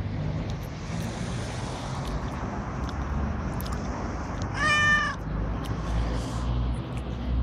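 Domestic cat meowing once, a single short call about halfway through, over a steady low background rumble.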